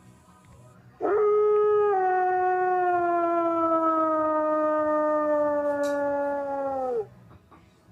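A wolf giving one long howl of about six seconds. It swoops up at the start, then slides slowly down in pitch and drops off at the end.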